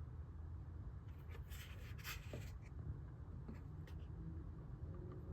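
Faint rubbing and scraping of the small handheld air compressor being handled, loudest about a second in, with a few light clicks, over a low steady background hum.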